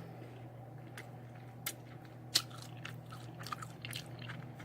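Close-miked eating sounds: chewing and sucking the meat off barbecue rib bones, with scattered sharp wet mouth clicks and smacks, the loudest a little past two seconds in. A steady low hum runs underneath.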